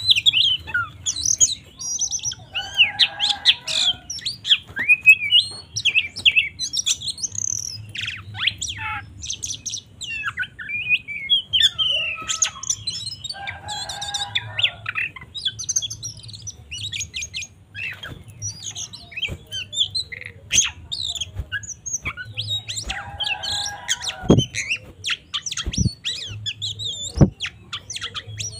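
Oriental magpie-robin (kacer) singing non-stop: a rapid, varied run of whistles, chirps and trills, broken three times by harsher, raspy bursts, in the aggressive, fighting song style that keepers play to rouse other kacer. A faint steady hum lies underneath.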